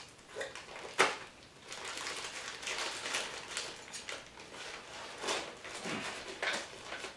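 Scissors cutting and working at the top of a mailer bag, with a sharp snip about a second in and irregular rustling and crinkling of the packaging.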